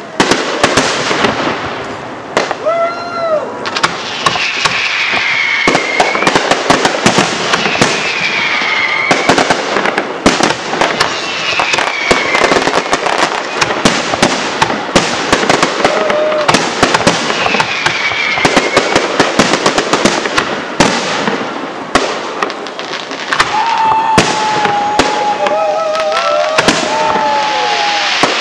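Aerial fireworks display: a dense, continuous run of shell bursts and crackling reports, several a second. Over it come repeated falling whistling tones, and longer wavering tones near the end.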